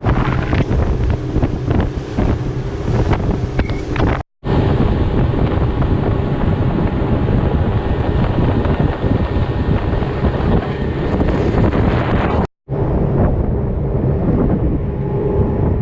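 Wind buffeting the microphone over the steady drone of a tour boat's outboard motor running at speed. The sound cuts out twice for a split second, about four seconds in and again past twelve seconds.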